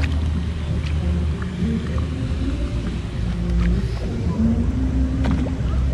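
Boat engine running with a low, steady drone, with shifting pitched tones riding on it.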